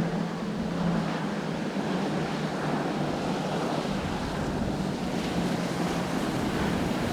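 Wind and surf noise at a rough inlet, with a low steady boat engine hum underneath that fades in the middle and returns near the end.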